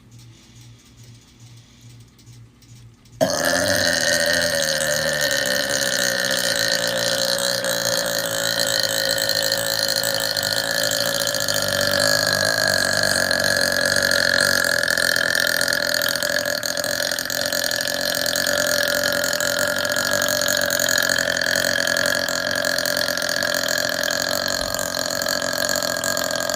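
A woman's long, loud burp that starts suddenly about three seconds in, after a quiet start, and goes on without a break for over twenty seconds.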